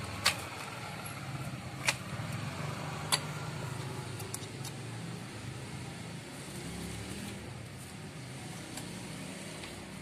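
A few sharp metallic clicks, three in the first few seconds, as Yamaha RX-King coil clutch springs are handled and set into the clutch pressure plate. Under them runs a steady low background rumble.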